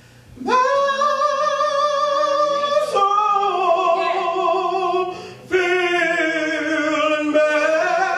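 A man singing solo into a handheld microphone, holding long notes with a wide vibrato, with a short break for breath about five seconds in.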